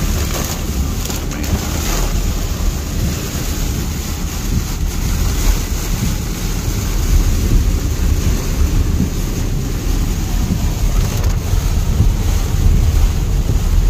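Heavy rain on a moving car and its tyres hissing on the wet road, heard from inside the car as a loud, steady rushing noise over a deep rumble, with a few brief sharp ticks.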